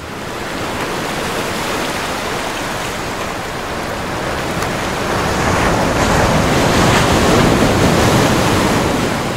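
A steady rushing noise, like surf or wind, that swells louder about halfway through and begins to fade near the end.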